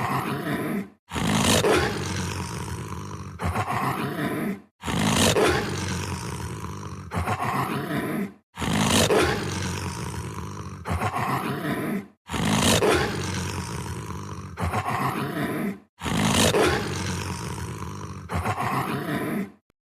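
Werewolf sound effect: a monster's roaring vocalization played as a loop. It repeats about every four seconds, five times over, each pass starting loud, trailing off, and ending in a brief silence.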